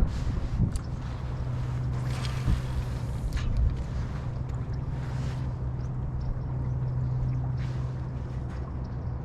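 Steady low hum of a small motor on a kayak, with wind rumbling on the microphone and a few short knocks in the first few seconds.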